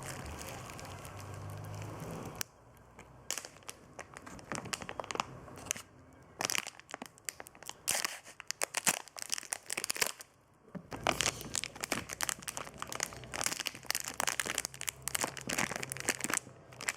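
A steady hiss for the first couple of seconds, then plastic packaging crinkling and crackling irregularly as a parcel is unwrapped by hand, pausing briefly about ten seconds in.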